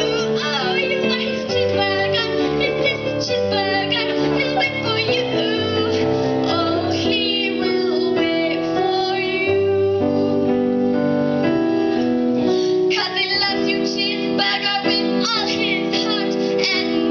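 A girl singing a comic pop song about a cheeseburger into a microphone, over backing music with keyboard or piano.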